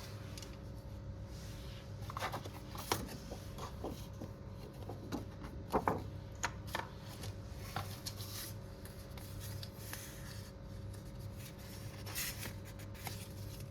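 Hands handling a tablet and its packaging: scattered light rustles, taps and clicks, busiest in the first half and again near the end, over a steady low electrical hum.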